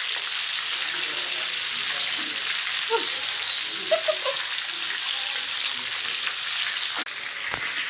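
Food frying in hot oil in a pan, with a steady sizzle throughout.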